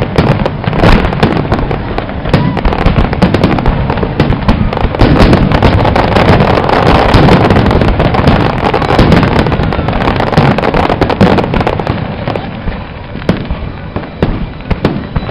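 Aerial fireworks display: a rapid barrage of shells bursting with overlapping bangs and crackling. The barrage is loud and dense through the middle, then thins to scattered bangs over the last few seconds.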